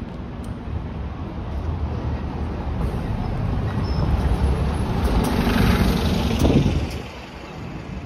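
A bus driving past close by. The rumble of its engine and tyres builds to a peak about six and a half seconds in, then drops away suddenly.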